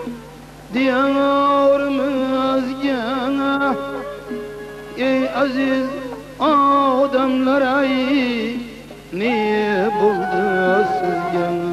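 A man sings a folk song with wavering, ornamented phrases, accompanied by plucked long-necked lutes. The voice comes in three phrases with short breaths between them.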